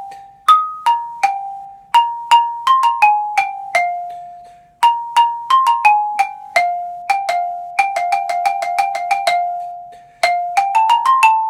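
Xylophone played with mallets: a rhythmic passage of single struck notes, each with a sharp attack and a short ring. There are brief breaks in the line about four seconds in and again near the end.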